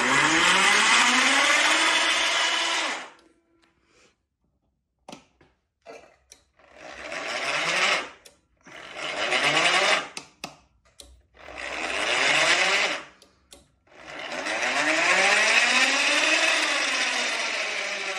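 Small geared electric motor of a motorised bead roller whirring in five short runs as it drives the rollers, each run starting with a rising whine as it spins up. In the last and longest run the pitch climbs and then drops as the speed is turned up and back down. Short clicks come in the gaps between runs.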